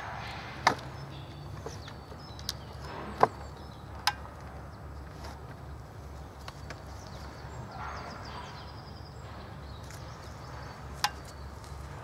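A few sharp knocks and clicks over a steady low outdoor rumble as a stopped chainsaw is set down and handled on a wooden log sawbuck. The loudest knock comes about three seconds in, another near the end.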